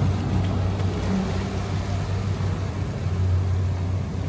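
Dive boat's engine running at a steady speed: a low, even drone with a steady hiss over it.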